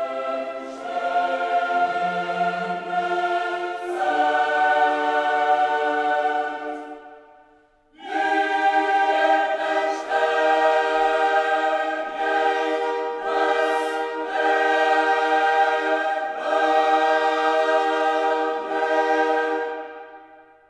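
Background choral music: voices sing long held chords that change every couple of seconds. The music drops away briefly about seven seconds in, then fades out at the end.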